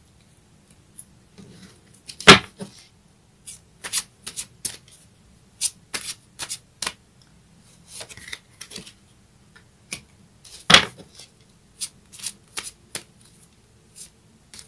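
A deck of cards being shuffled by hand: an uneven run of sharp snaps and slaps, two much louder than the rest about two seconds in and near eleven seconds.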